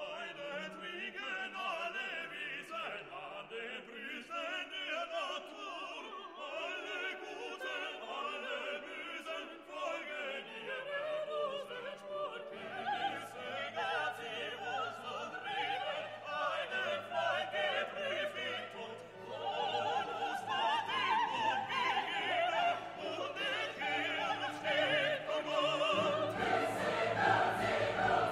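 Background music in a classical, operatic style: singing voices over an orchestra. A low bass part comes in about halfway through, and the music grows louder near the end.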